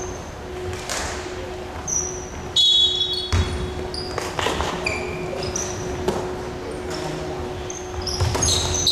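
Basketball play on a hardwood court: sneakers squeaking in many short chirps, with the ball bouncing and a few low thumps. A louder, higher squeal sounds for about half a second around two and a half seconds in.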